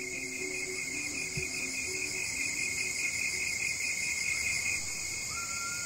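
Insects chirring in a steady evening chorus, one of them a fast pulsing trill under a continuous high hiss-like buzz. A single short whistled note, like a bird call, comes about five seconds in.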